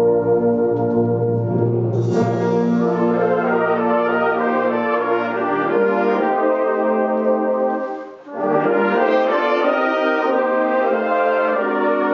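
A brass band of cornets, tenor horns, euphoniums and trombones plays sustained chords. The low bass part drops out about six seconds in. The band breaks off for a moment around eight seconds in, then comes back in.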